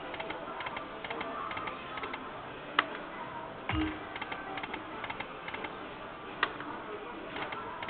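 Video slot machine running through its spins: a steady stream of quick ticks and clicks over casino background noise, with a low thud about four seconds in.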